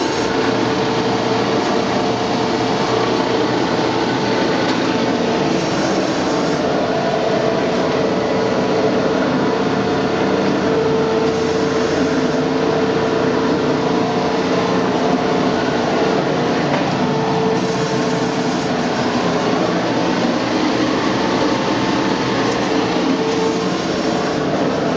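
A 1971 Mattison 20" x 72" hydraulic reciprocating surface grinder with a 50-horsepower spindle, running under power: a steady mechanical hum with a steady pitched tone through it.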